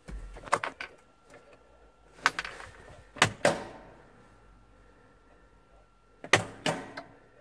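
Several sharp knocks and clatters inside a tractor cab, over a faint steady high tone, with the engine not running.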